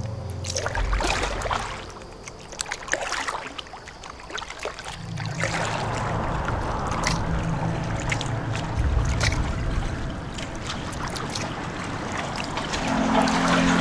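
Kayak paddling, with the paddle splashing and dipping and water rushing past the hull. Low notes of background music sit underneath, shifting every few seconds.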